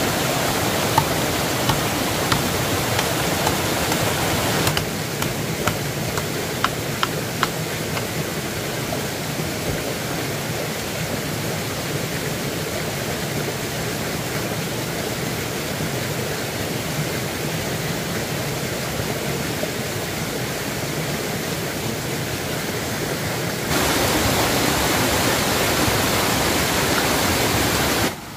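Steady rushing of running water, with a few sharp clicks near the start and a few seconds in. The level steps down abruptly about five seconds in and back up near the end.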